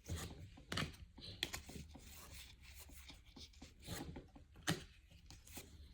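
Baseball trading cards being handled and flipped through by hand, giving scattered short rustles and light clicks of card against card.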